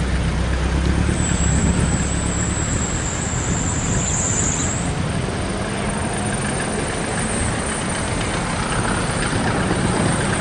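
Steady outdoor rumble and hiss, with a thin high whine that comes in about a second in and stops near the middle.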